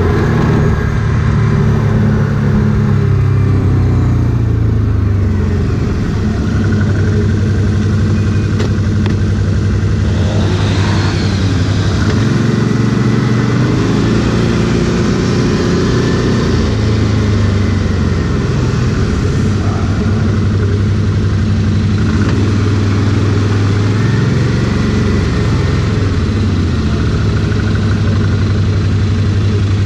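ATV engine running steadily, its revs rising and falling now and then.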